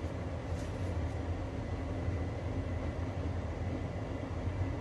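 Steady low hum with an even hiss, and a faint rustle of paper towel about half a second in.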